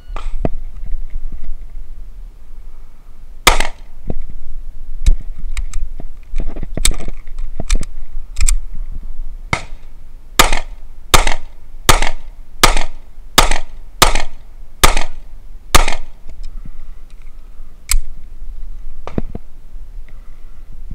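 CZ P10F pistol fired in a timed qualification string. One shot comes about three and a half seconds in, then a few scattered shots and clicks while a failure to feed is cleared, then a fast, even string of about eight shots, a little over one a second, ending about 16 seconds in.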